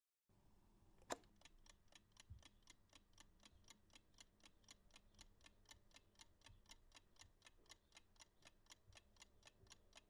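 Faint, rapid, even ticking, about four ticks a second, with one sharper click about a second in.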